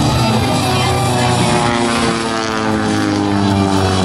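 Engine and propeller of a Van's RV-8 aerobatic plane, a horizontally opposed Lycoming IO-360, passing low. Its drone drops in pitch about two seconds in as it goes by.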